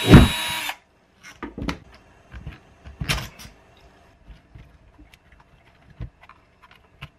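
Cordless drill-driver running with a hard knock just after it starts, then stopping before the first second is out. Then a series of knocks and clatters as the drill is set down and the opened plastic belt-sander housing is handled and turned over on a wooden workbench.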